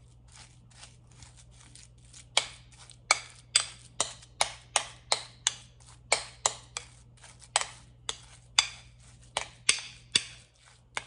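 A metal spoon beats minced clown knifefish paste against the side of a bowl, a run of sharp slapping strokes at about three a second. The strokes are soft for the first couple of seconds, then loud. The fish paste is being pounded with salt until it turns firm and springy.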